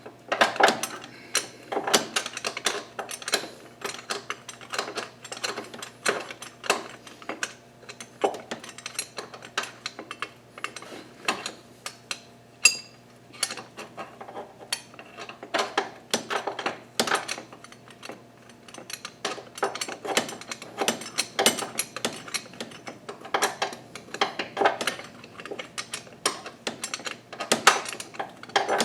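Metal hand tools and engine parts clinking and clattering irregularly while someone works on an engine's accessory brackets. One metal piece rings out with a clear ping a bit before halfway. A steady low hum runs underneath.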